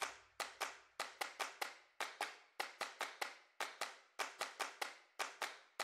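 A string of sharp, light clicks or taps at an uneven pace, several a second, some in quick clusters, each dying away briefly.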